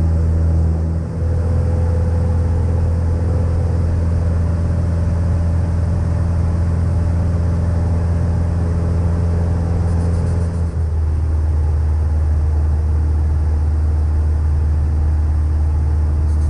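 Cessna 152's four-cylinder Lycoming O-235 piston engine and propeller in flight, heard in the cockpit as a steady low drone. The tone shifts slightly about eleven seconds in.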